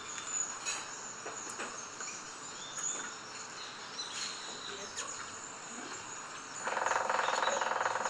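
Rainforest background of insects and bird chirps. Near the end comes a male cinnamon woodpecker drumming: a rapid roll of taps on a tree trunk, lasting about a second and a half and louder than the background. This is a display that announces his presence to any interested female.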